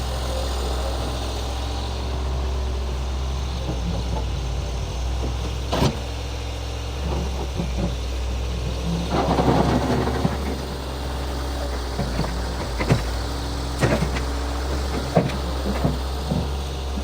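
Tractor engine running steadily under work, with a few sharp clanks and a louder rough stretch about nine seconds in.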